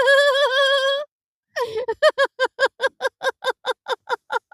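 A person's voice in a vocal relaxation exercise: a held, high "ah" that wavers in pitch and stops about a second in. Then a run of short, evenly spaced laughing "ha" pulses, about five a second.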